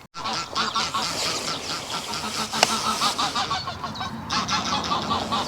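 A flock of geese honking noisily, many short calls overlapping and repeating quickly, with one sharp click about two and a half seconds in.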